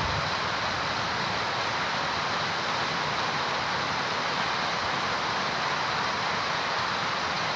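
Heavy rain pouring steadily, a constant even hiss with no break or change.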